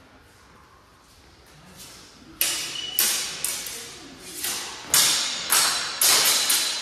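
Steel longswords clashing in a fast sparring exchange: about nine or ten sharp blade-on-blade strikes in quick succession starting about two and a half seconds in, each ringing briefly and echoing in a large hall. The last few strikes come closest together.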